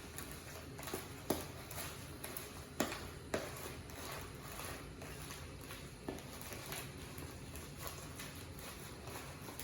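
Chicken salad being stirred by hand in a bowl: quiet scraping and mixing with irregular sharp clicks of the utensil against the bowl, the loudest three in the first few seconds.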